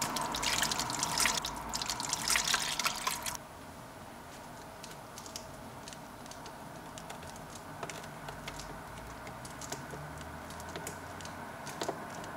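Liquid poured from a bottle onto a collodion glass plate in a processing tray, splashing for about three seconds, then faint drips and small ticks as the plate sits in the bath while its image clears.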